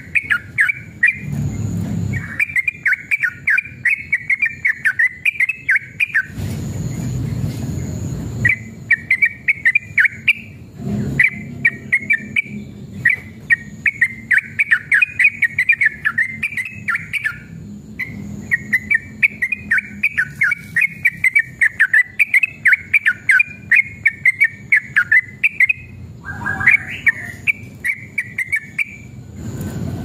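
Yellow-vented bulbul (trucukan) singing long runs of rapid, chattering notes, broken by short pauses. About six seconds in, a low rumbling noise fills a two-second gap in the song.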